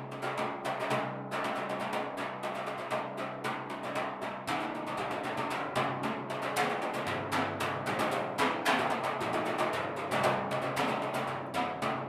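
Timpani played with Vic Firth Dreadlocks bundle sticks: a quick, busy pattern of many strokes a second, each with a brushy attack over the drums' ringing pitch. The playing moves between drums, so the low pitch changes several times.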